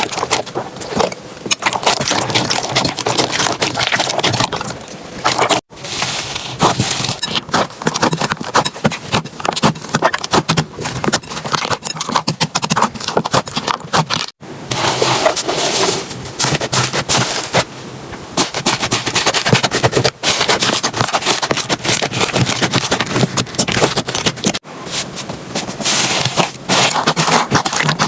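Slime being squeezed, pressed and stretched by hand, giving dense, rapid crackling and popping clicks. A few sudden short breaks fall where one clip cuts to the next.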